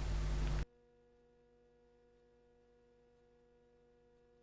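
Steady background hiss and low hum that cuts off abruptly about half a second in, leaving near silence with only a faint steady electrical hum.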